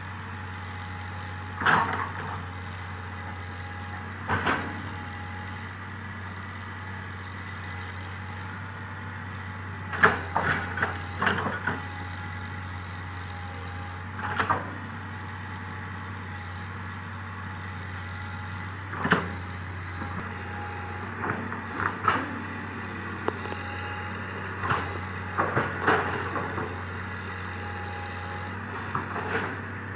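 Komatsu PC200 hydraulic excavator's diesel engine running steadily while digging, with sharp clanks and knocks at irregular intervals, some in quick clusters, from the working bucket and arm.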